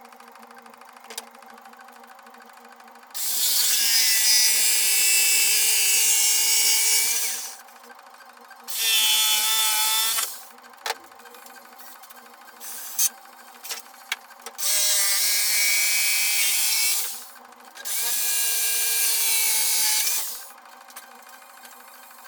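Power drill running in four bursts of about two to four seconds each, with a steady high whine, and a few light knocks between the bursts.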